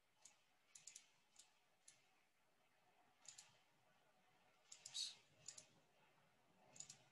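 Faint, irregular light clicks over near silence: about a dozen short clicks, some in quick pairs and triples, spread through the pause.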